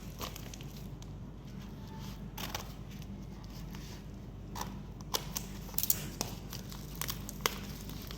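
Hands handling and opening the packaging of a car relay: plastic crinkling and tearing, with a few sharp clicks in the second half, over a steady low hum.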